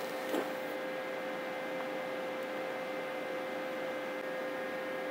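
Steady electrical hum from a rack of powered audio equipment: a constant mid-pitched tone with fainter steady overtones over a light hiss.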